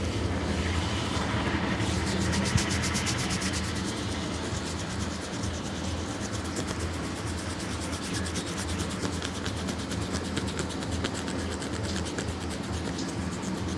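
Hands rubbing and scrubbing hair and scalp in a head massage, a fast run of repeated rubbing strokes.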